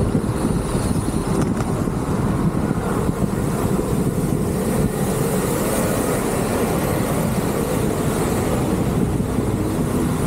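Steady low noise of an electric scooter ride: wind and road noise on the microphone, with faint steady tones from the scooter running under it.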